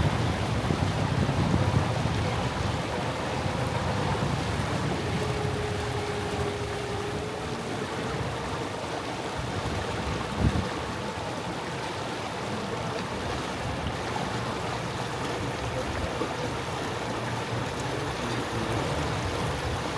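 Canal tour boat underway on the river: a steady motor hum over the wash of water, with wind on the microphone in the first few seconds. A single short knock about ten seconds in.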